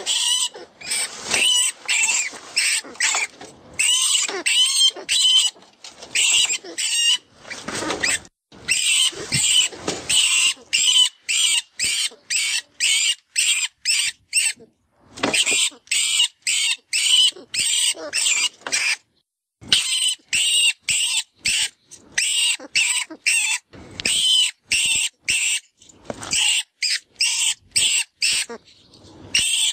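Rat distress call from the FoxPro 'Vermin' predator call: rapid, shrill squeaks and squeals, about two or three a second, with a short pause about two-thirds of the way through. It is a rodent-in-distress sound used to call in foxes.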